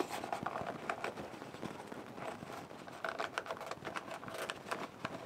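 A birch bark container being handled while its wooden bottom is pressed into place: dry bark rubbing and scraping, with many small clicks.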